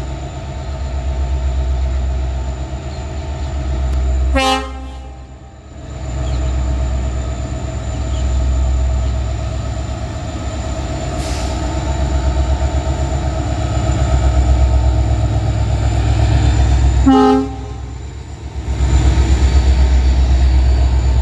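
Twin WDP4D diesel-electric locomotives hauling a passenger train, their 16-cylinder two-stroke EMD engines running with a low pulsing rumble that grows louder as they draw close and pass. The horn sounds twice, about four seconds in and again about seventeen seconds in, each blast about a second and a half long.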